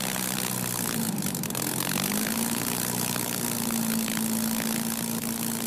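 Two-seat Spitfire's Rolls-Royce Merlin V12 engine running at take-off power as the fighter departs. Its drone rises a little in pitch about two seconds in, then holds steady.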